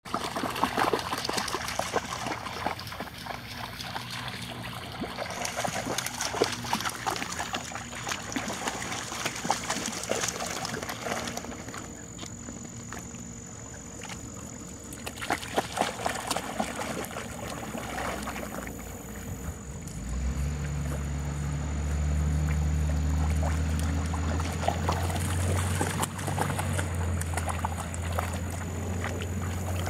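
Pond water splashing and sloshing as a boxer wades and Labrador puppies paddle through it, with many small irregular splashes. A steady low hum joins about two-thirds of the way through.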